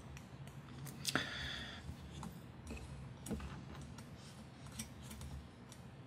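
Faint, scattered clicks and taps of small parts being handled by hand: a carbon fiber drone frame, its camera mount and small hardware being fitted together, with a sharper click about a second in.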